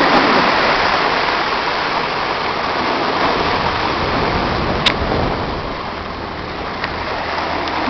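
Steady rushing of sea water and wind around a yacht crossing a surf bar, with a single sharp knock about five seconds in.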